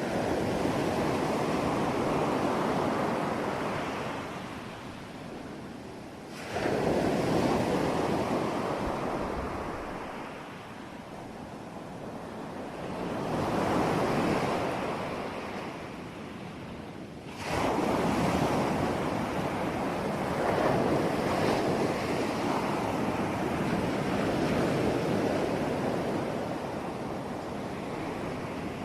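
Sea waves breaking on a shore, several in turn: each rush of surf swells and then fades, two of them coming in suddenly.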